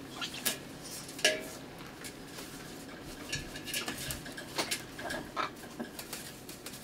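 Blue-and-gold macaw bathing in a metal basin, beating its wings in the water: irregular splashes, with water spattering against the tub.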